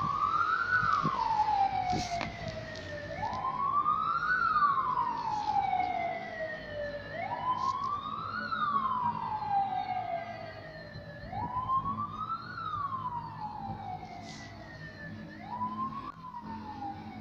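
Siren wailing: each cycle rises quickly in pitch and then falls slowly, repeating about every four seconds.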